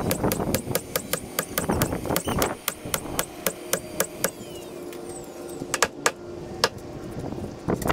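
A cordless nailer firing quickly into plywood, a sharp snap about five times a second for the first four seconds. After that come a few single hammer taps.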